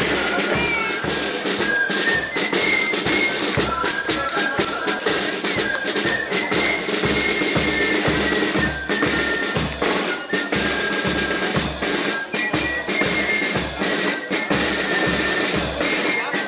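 Marching band playing a march outdoors: a bass drum strikes a steady beat under snare drum and a high melody line.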